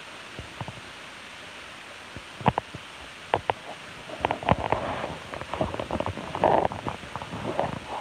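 Raccoons feeding on spilled birdseed: irregular clicks and crunching that start about two and a half seconds in and grow busier after four seconds, over a steady hiss.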